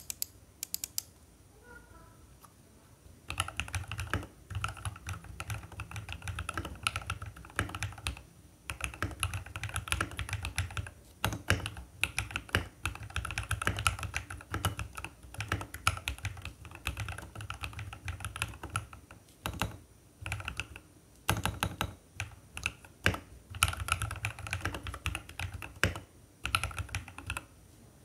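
Typing on a mechanical keyboard fitted with Akko ASA-profile PBT keycaps: a few key presses at first, then fast runs of keystrokes from a few seconds in, broken by short pauses.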